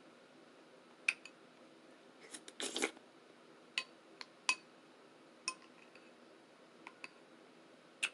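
Spoon clinking and tapping against a bowl while scooping oatmeal: about a dozen light, sharp clicks, spread unevenly, some with a brief ring. About two and a half seconds in there is a short scraping, rustling stretch.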